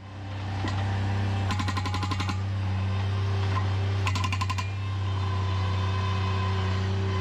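An engine running steadily with a low, even hum. About a second and a half in, and again about four seconds in, a rapid rattling burst lasting under a second rides over it.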